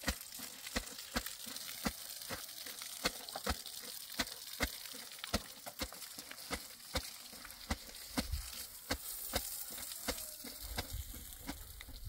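Water hissing steadily from a hose nozzle sprayed onto a concrete-block wall, with a sharp click about twice a second.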